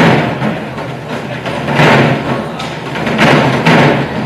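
An ensemble of Korean barrel drums (buk) struck together in heavy unison hits that ring out in a large hall: one at the start, one about two seconds in, and two in quick succession a little after three seconds.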